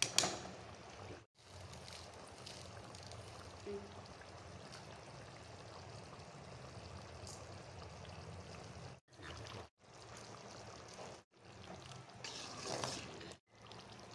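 Thin tomato-and-sev gravy simmering in a kadai, a steady bubbling hiss, with a sharp clatter at the start and a louder spell of bubbling near the end. The sound breaks off for a moment several times.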